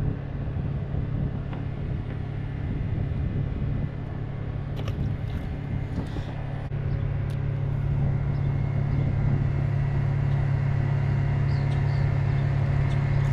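A steady low rumble with a faint hum, unchanging throughout, with a few faint clicks.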